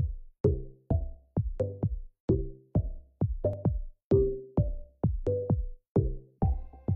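Background electronic music with a steady drum-machine beat and short plucked notes; sustained higher notes come in near the end.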